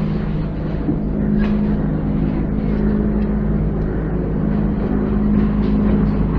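A steady low mechanical hum with two held tones, like a motor or fan running, with a few faint ticks.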